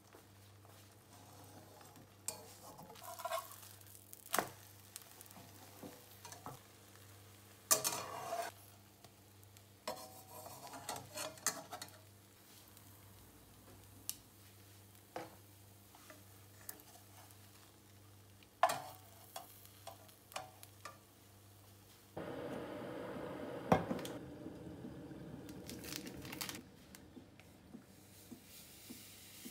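Egg and bread frying quietly in a nonstick pan, broken by sharp clicks and knocks of chopsticks and utensils against the pan and a plate. Later a steady rushing noise lasts about four seconds, followed by a few light clinks of a spoon at a ceramic mug.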